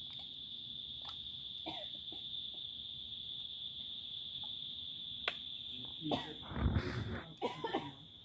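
Steady high-pitched insect trill, with a few faint chirps and clicks over it. Near the end comes a louder stretch of knocks and rustling.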